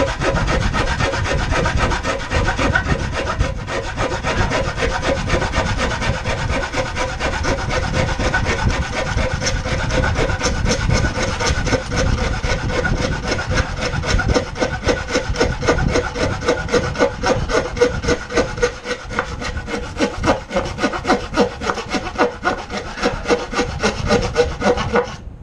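Narrow-bladed hand saw crosscutting a wide wooden board in quick, steady back-and-forth strokes, with sawdust building at the kerf. The sawing stops abruptly right at the end.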